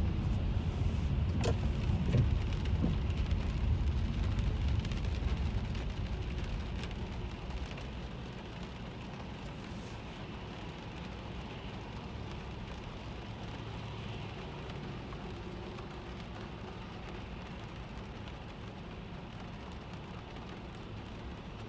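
Inside a car driving in the rain: a low road and engine rumble with the patter of rain on the car's body, with a single click about a second and a half in. The rumble eases and the sound gets quieter after about six seconds.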